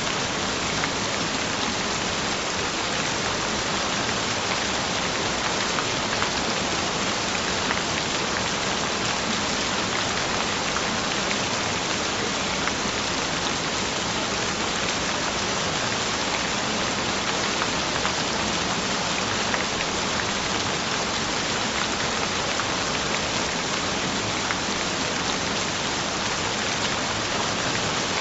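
Steady rain: an even hiss with scattered taps of drops.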